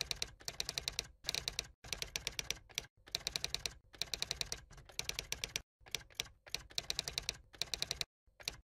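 Typing sound effect: rapid runs of sharp key clicks, each run lasting about half a second to a second with short silent gaps between, as text is typed out on screen letter by letter.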